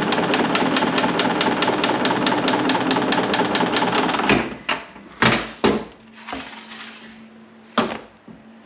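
A motor-driven machine running with a steady hum and a rapid, regular clatter, which stops about four seconds in. Then come a few separate knocks and thumps.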